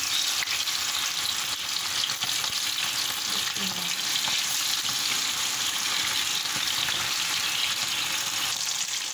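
Marinated, flour-coated chicken pieces deep-frying in hot oil in a wok. The frying makes a steady, dense sizzle with fine crackling as the chicken is half-fried to give it colour.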